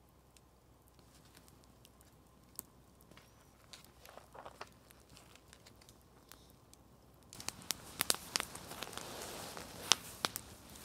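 Campfire crackling and popping, with sharp irregular cracks over a steady hiss, starting abruptly about seven seconds in after a quiet stretch with only a few faint clicks.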